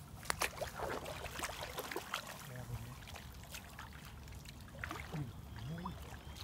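Water splashing and trickling as a person moves in the shallow water at the bank. A quick string of sharp splashes comes in the first couple of seconds, then sparser sloshing.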